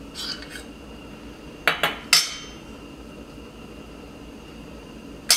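A utensil clinking and knocking against a stainless steel wok as a dollop of coconut oil is dropped in. There are a few light clinks, then two knocks and a sharper ringing strike about two seconds in, and one more strike near the end.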